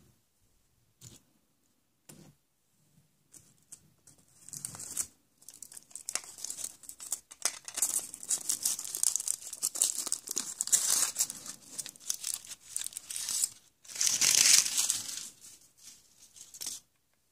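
Crinkly wrapper being torn open and crumpled by hand: a few light clicks, then steady crackling and tearing, loudest about three quarters of the way through.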